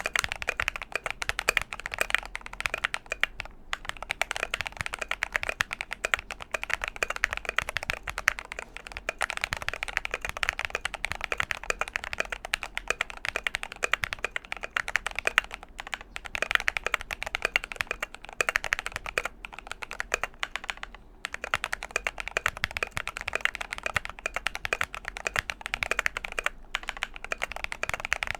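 Fast continuous typing on a GMMK Pro mechanical keyboard with lubed Glorious Panda tactile switches, aluminum plate and electrical-tape mod, keys clacking in quick runs with a few short pauses.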